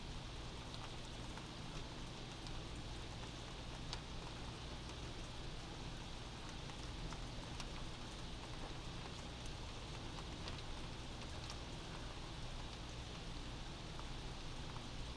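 Steady rain heard from indoors, an even hiss with scattered drips and light taps of drops, over a low steady rumble.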